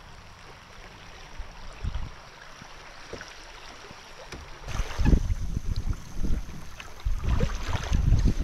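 Steady hiss of heavy rain and rippling river water around a paddled kayak. About halfway through it turns louder and rougher, with irregular low buffeting and splashing on the microphone.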